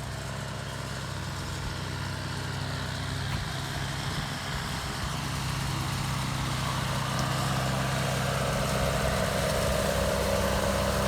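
Farm tractor engine running steadily with a low, even drone, growing gradually louder as it comes closer.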